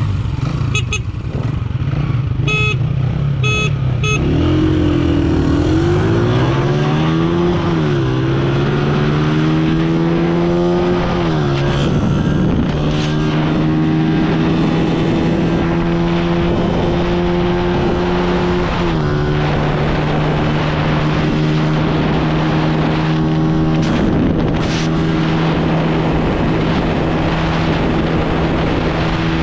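A few short high beeps of the start signal, then a Honda CG125 single-cylinder four-stroke motorcycle engine accelerating flat out through the gears. The pitch rises in sweeps, dipping at each gear change about 8, 11 and 19 seconds in, then holds steady at high revs.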